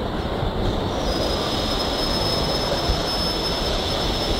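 Steady hiss and rumble of room and recording noise, joined about a second in by a thin, steady high-pitched whine.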